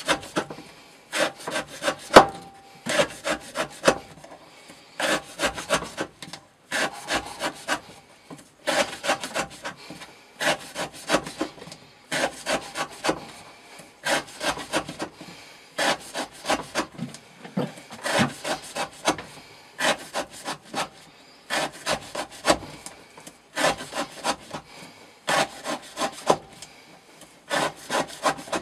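Knife blade drawn through rope in short sawing strokes, in quick clusters of several strokes every second or two: a rope-cutting edge-retention test of a Hyperion Medium Mamba blade in Elmax steel.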